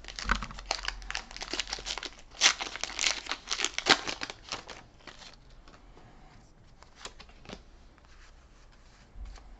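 Foil wrapper of a Pokémon trading-card booster pack crinkling and tearing as it is opened, in quick crackles for about the first five seconds. Then it goes quieter, with a couple of light clicks as the cards are handled.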